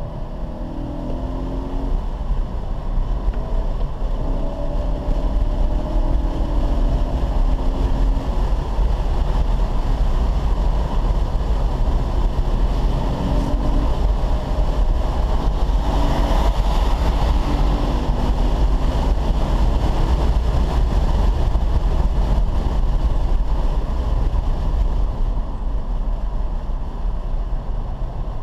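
Car driven hard on a race track, heard from inside the cabin: the engine running under load with a heavy low rumble of road and wind noise, its note rising and falling as the car accelerates and slows.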